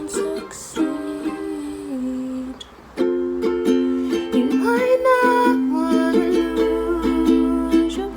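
Ukulele played in strummed chords, getting louder about three seconds in, as an accompaniment to a slow pop song.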